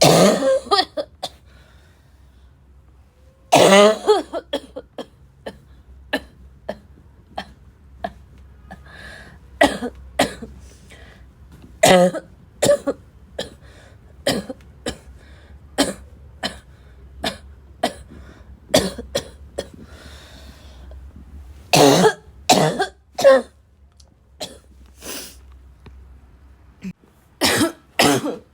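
A person in a bad barking cough fit: a long run of short, sharp, harsh coughs, some single and some in quick clusters. A longer bout comes about three and a half seconds in, and tighter bunches come near the end.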